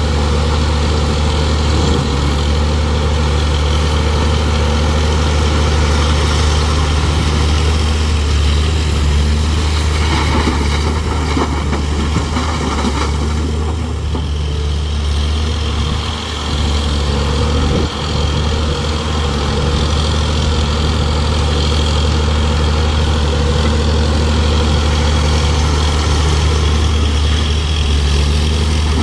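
Heavy diesel engine running steadily with a deep, even drone, dipping briefly twice a little past the middle.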